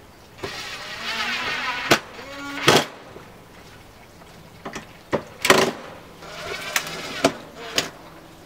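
Cordless drill driving a screw up through plywood into a wooden 1x2: one whir of about two seconds, then a few sharp knocks, and a second brief whir near the end.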